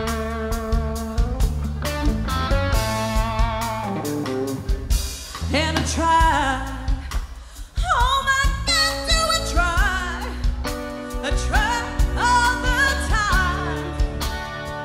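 Live rock band playing electric guitars, bass and drums. About five seconds in, a woman starts singing long, wavering notes over the band.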